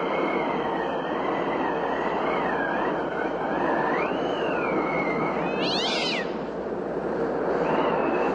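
A high, wavering wail that bends up and down over a steady rumbling noise, with a short shrill screech about six seconds in.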